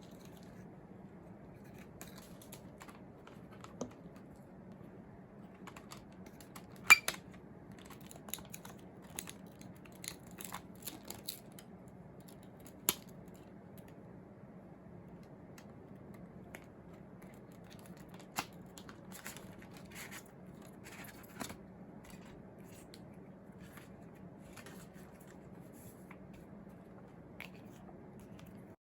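CD packaging handled and opened by hand: scattered clicks, taps and light rustles of plastic and paper, with one sharp click about seven seconds in, over a steady low hum.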